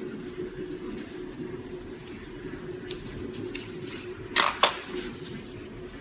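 Light clicks from handling a hand fiber buffer-stripping tool at a workbench, with two sharp clicks close together about four and a half seconds in, over a steady low hum.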